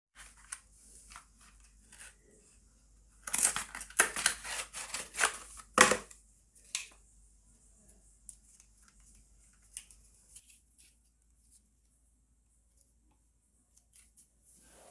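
Hands handling a plastic toothpaste tube and a thin plastic cup. A few seconds in there are about three seconds of dense crinkling and crackling, then only scattered small clicks and taps.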